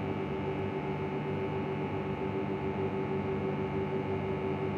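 Steady machine hum holding several even tones, with no change or break.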